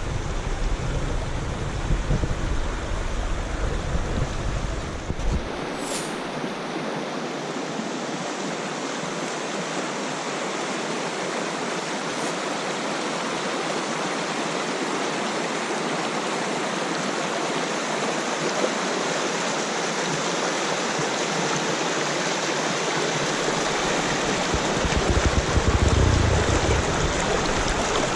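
Steady rushing of a clear river's flowing water. A low rumble sits under it for the first five seconds or so and returns briefly near the end.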